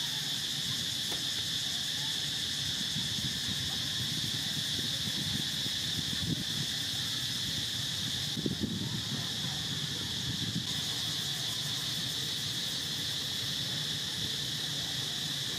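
A chorus of insects gives a steady, high-pitched drone, with a low rustling noise that comes and goes beneath it.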